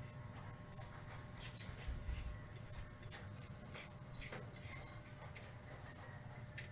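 Paintbrush bristles scratching and dabbing as liquid rust remover is brushed onto a rusty steel door plate lying on cardboard, in soft, irregular strokes over a low steady hum.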